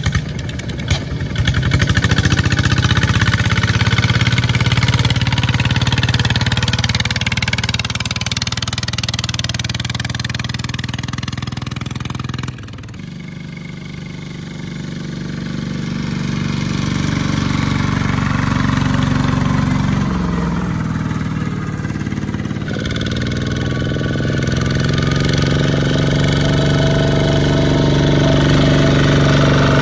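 Single-cylinder diesel engines of two-wheel walking tractors running steadily under load as they haul trailers of rice sacks. The engine sound changes abruptly about twelve seconds in and again about ten seconds later, as one tractor gives way to the next.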